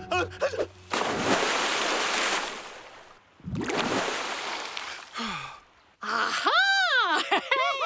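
Two rushes of splashing water, each lasting a second or two and fading. About six seconds in, a cartoon character's high voice calls out in rising-and-falling tones.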